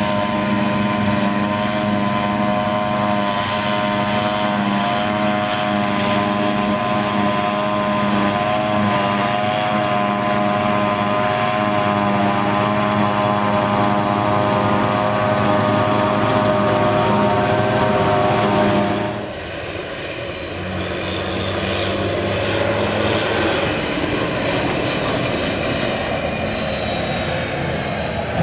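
John Deere 7400 self-propelled forage harvester chopping and blowing grass into a trailer with tractors running alongside: a loud, steady droning hum with a slight waver. About nineteen seconds in it switches abruptly to a Valtra tractor towing a loaded silage trailer past, a rougher engine sound with road noise.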